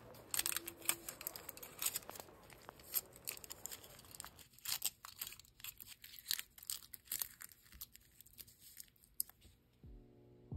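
Aluminium foil crinkling and crackling as it is wrapped and pinched tightly around a fingertip, a run of dense sharp crackles that stops about nine seconds in.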